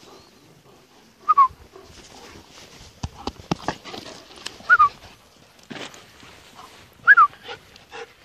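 German Shepherd giving three short, high yelps that fall in pitch, spaced a few seconds apart, while being rough-played with. Between them come rubbing of fur and gloves and a few sharp knocks from the handling.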